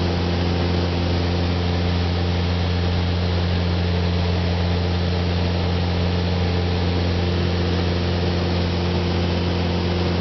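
Jabiru light aircraft's piston engine and propeller droning steadily in flight, heard inside the cockpit, with an unchanging pitch.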